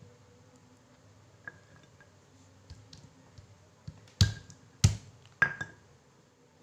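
Spices being pounded with a pestle in a covered mortar: a few light knocks, then three hard strikes a little over half a second apart, each leaving a brief ring.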